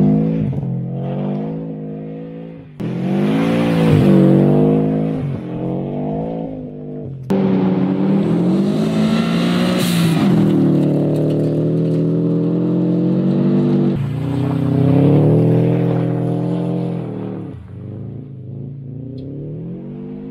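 Subaru WRX GC's turbocharged flat-four engine revving, the pitch rising and falling through several runs that start abruptly. There is a burst of hiss about ten seconds in.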